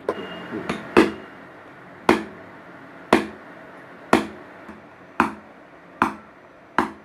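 Hammer striking a nail to punch holes through the thin sheet-metal bottom of a strainer: sharp metallic taps, about one a second.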